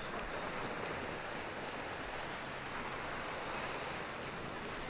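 Steady wash of sea waves against the shore, with some wind.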